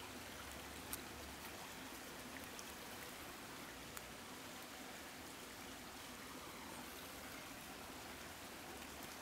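Faint steady rush of a stream, with a couple of faint clicks about one and four seconds in.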